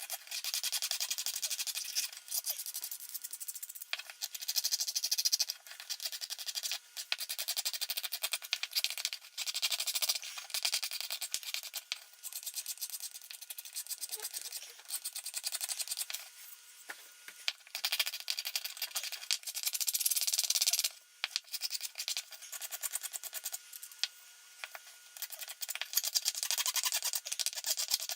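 Rapid abrasive rubbing and scraping on metal in irregular stretches with short pauses, typical of scrubbing rust off a hand plane's parts.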